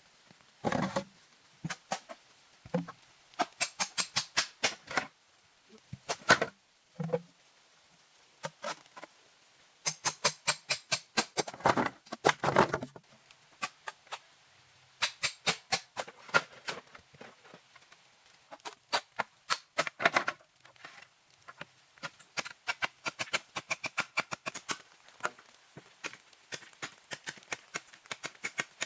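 Runs of sharp knocks and clicks in quick succession, several a second, with short pauses between the runs.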